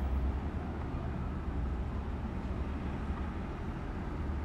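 Steady low rumble of background noise, with no speech or music.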